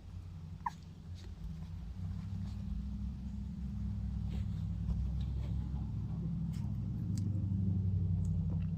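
A low steady rumble that grows louder after about two seconds, with one short high whimper from the Maltese–shih tzu puppy about a second in and a few faint clicks.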